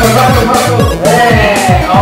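Background music: an electronic track with a steady beat of deep kick drums and bass.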